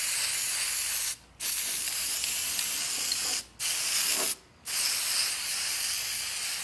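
Aerosol can of paint remover spraying: a steady hiss in four long bursts, broken by three short pauses.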